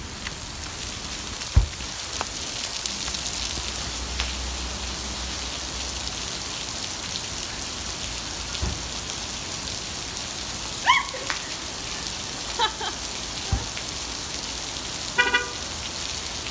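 Heavy rain pouring down steadily on pavement and parked cars, with a few dull knocks and a short car-horn beep near the end.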